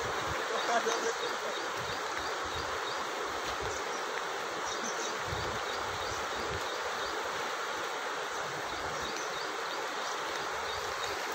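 Swollen Painganga river in flood, its water rushing steadily past and over the road, with irregular low gusts of wind on the microphone.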